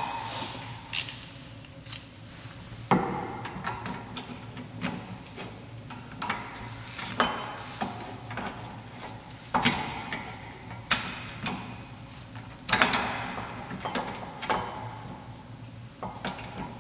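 Hand ratchet clicking in short strokes, with sharp metallic clicks and knocks, as a bolt on a rear brake caliper is turned in.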